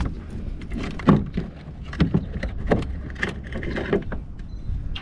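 A series of irregular knocks and thuds against a plastic kayak hull over a low rumble, the loudest about a second in.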